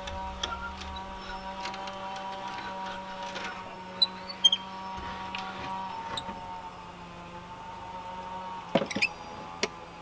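Irregular light taps and clicks of a hammer and hand tools working on a shed door's handle hardware, with a short cluster of knocks about nine seconds in.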